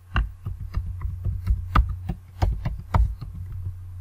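Typing on a computer keyboard: a quick, irregular run of key clicks as a username and password are entered, over a steady low hum.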